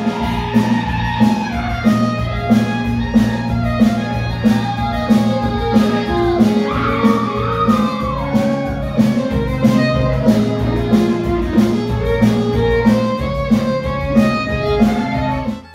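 Live Cajun band music: fiddle, button accordion and acoustic guitar playing a lively tune over a steady quick beat.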